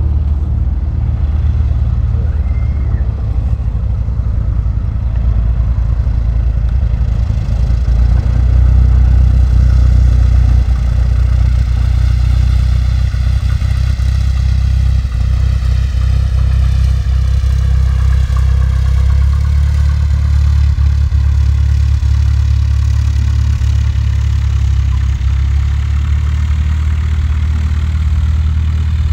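Single-engine light propeller plane on its landing approach, the engine droning steadily at low power as it comes closer, with a slow falling sweep in the higher part of the sound as it passes. A steady low rumble lies under it throughout.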